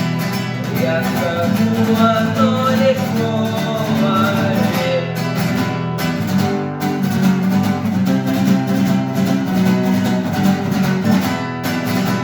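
Acoustic guitar strumming steady chords, with a wavering melody line over it for the first few seconds.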